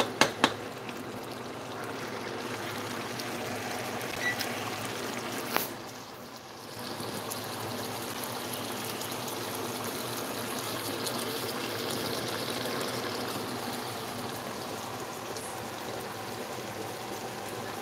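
Pot of chicken adobo in thick, creamy sauce simmering on the stove, a steady bubbling hiss. A wooden spoon knocks against the pot a few times at the start, with one more click about five and a half seconds in.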